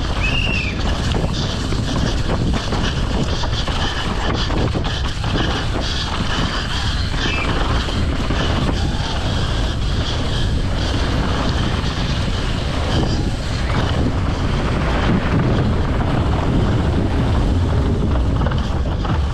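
Downhill mountain bike running at speed down a rough, rocky track: wind buffeting the microphone over a constant rumble and rattle of the tyres and bike.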